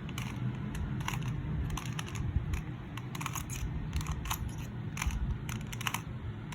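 QiYi 2x2 speed cube being turned quickly through an algorithm: the plastic layers click sharply with each turn, more than a dozen irregular clicks in quick runs.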